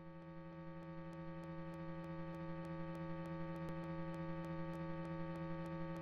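Steady electrical hum, a buzzy tone rich in overtones, slowly growing louder, with faint scattered ticks of static over it.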